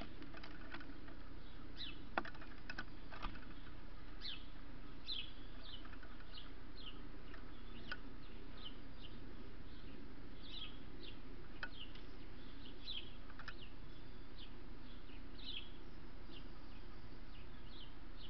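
Small birds chirping: short high chirps repeated every second or so, over a steady hiss. A few sharp clicks in the first few seconds, the loudest about two seconds in.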